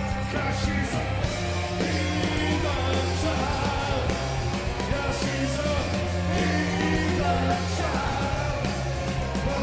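A garage rock band playing loud and live, with a heavy bass line that holds and changes notes, driving drums and wailing lead lines over the top.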